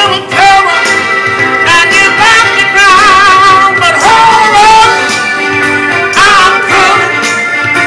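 A man singing soul over an instrumental backing, his voice sliding and wavering through long held notes.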